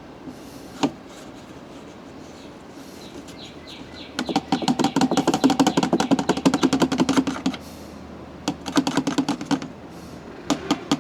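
Motor oil glugging out of a bottle as it is poured into the engine's filler, in spells of quick, even gulps, the longest lasting about three seconds. A single click sounds about a second in.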